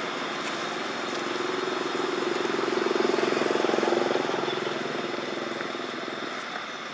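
Engine of a passing motor vehicle, growing louder to a peak about three to four seconds in, then fading away.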